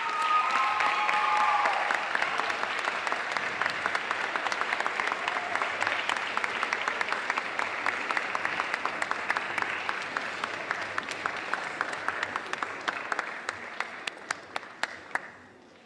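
An audience clapping for a sustained stretch, thinning out to a few scattered claps before stopping near the end. A short pitched whoop rises over the clapping about a second in.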